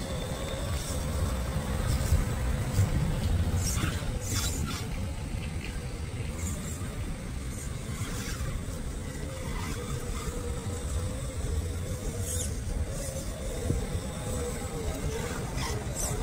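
Electric motor and gear train of an FMS FJ40 Land Cruiser scale RC crawler whining steadily as it crawls through grass, its pitch wavering a little with the throttle, over a low rumble and a few short rustles.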